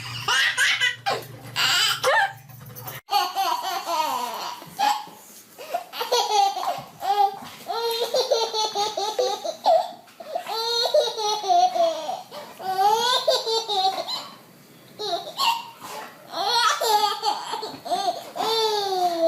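A baby laughing hysterically, in repeated bursts of high-pitched laughter with short pauses between them.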